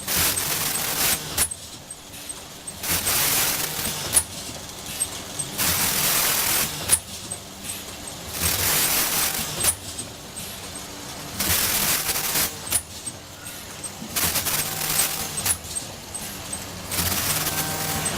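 Granule packaging machine running through its cycle: about a one-second burst of air hiss roughly every three seconds, with a sharp mechanical clack halfway between the bursts.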